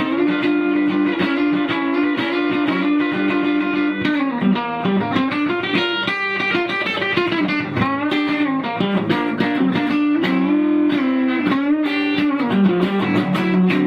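Electric guitar, a cheap AliExpress copy of a Rickenbacker 325, playing a lick: held double-stop notes with slight bends, a quick run of single notes in the middle, then the held notes again.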